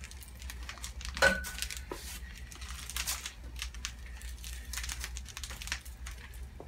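Metal miter saw stand being handled and moved, rattling and clicking, with one sharp ringing metal clank about a second in.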